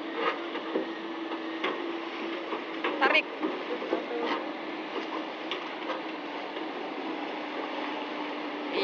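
Komatsu hydraulic excavator running with a steady engine hum while it digs in mud, with scattered clicks and knocks.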